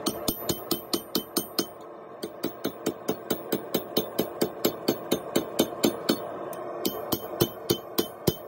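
Hand hammer striking a red-hot steel blade on an anvil: steady blows about three a second, each with a bright metallic ring, with a short pause about two seconds in.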